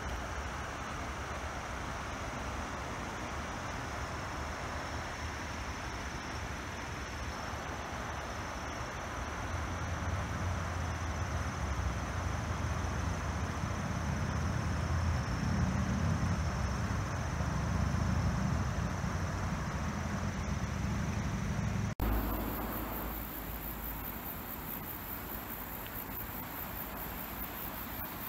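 Steady outdoor ambience: a shallow river rushing over stony riffles, under a thin, steady, high insect drone. A low rumble swells up from about a third of the way in, and the whole sound changes abruptly about four-fifths through.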